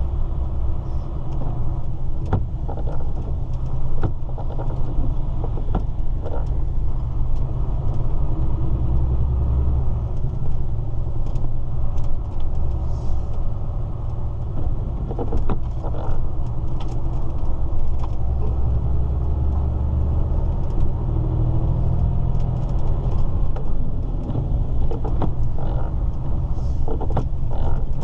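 DAF lorry driving, heard from inside its cab: a steady low engine and road rumble with scattered light clicks and knocks.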